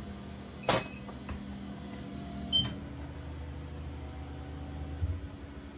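Thunder Nova 35 CO2 laser cutter just switched on, running with a steady hum, with two sharp clicks, one under a second in and one about two seconds later, and a smaller click near the end.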